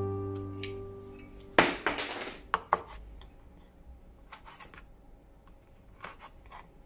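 Chef's knife cutting sea clam meat on a bamboo cutting board: a few sharp knocks of the blade against the board about a second and a half in, then fainter taps. Guitar music dies away at the start.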